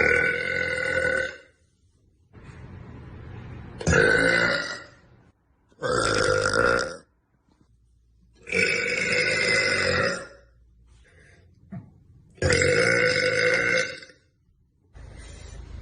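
A young woman belching five times in a row, each belch long and pitched and lasting a second or more, with short pauses between them.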